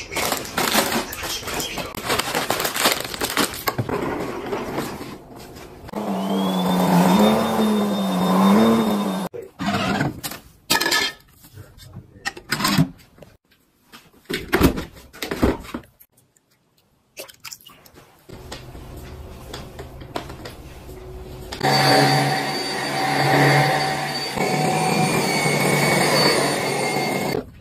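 Household items being handled, with short clicks and rustles and a wavering pitched sound partway through. In the last few seconds, a handheld mite-removal vacuum's motor runs steadily with a whine.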